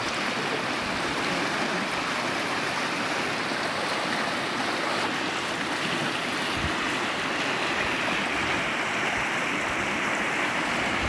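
Steady rushing of a small river's current.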